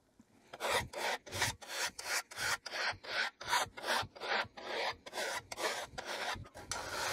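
A triangular saw file rasping back and forth along the steel tooth line of a dovetail saw plate, about three quick strokes a second with a longer stroke near the end. The old uneven teeth are being filed right down to smooth metal so the saw can be re-toothed.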